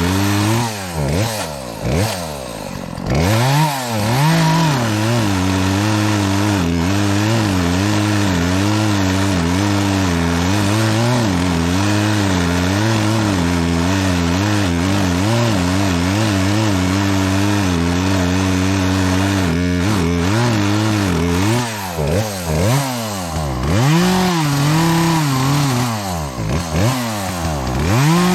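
Gas chainsaw cutting through a pine trunk, its chain one the owner admits could have been sharper. The engine revs up and down several times in the first few seconds and again in the last several. In between it holds a steadier, wavering pitch under load.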